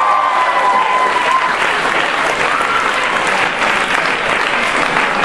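Group of people applauding, steady dense clapping, with a voice calling out over it during the first second or so.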